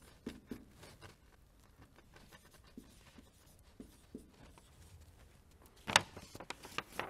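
Marker writing on a whiteboard: faint scratchy pen strokes and small taps, with a cluster of sharper taps about six seconds in.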